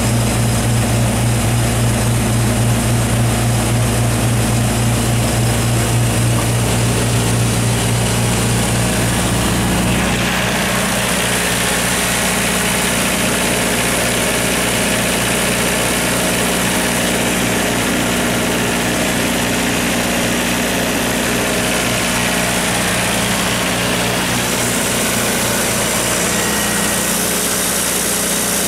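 John Deere 4045TF270 four-cylinder turbocharged diesel in a Kohler standby generator set, running steadily at constant speed with a deep, even hum. About ten seconds in, the deep hum weakens and the sound turns brighter and more mechanical: the engine heard close through its open enclosure instead of through the sound-attenuated housing.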